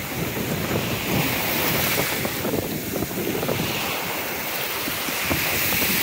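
Ocean surf breaking and washing up the beach, a steady rush, with wind blowing across the microphone.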